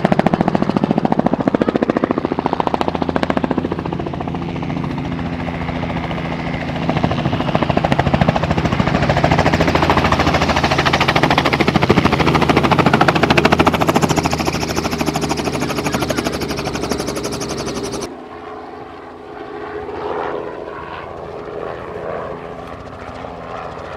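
Small helicopter's rotor chopping in a fast, steady rhythm over the engine, loud and close. About 18 seconds in, the sound cuts abruptly to a fainter helicopter farther off.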